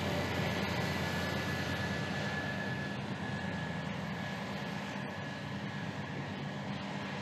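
Steady engine drone of harvest machinery, a tractor and a combine harvester at work, with a faint high whine held over it. The level eases off slightly over the seconds.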